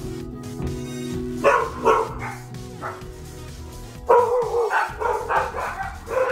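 Small dog barking: a few single barks starting about a second and a half in, then a quick run of barks from about four seconds in.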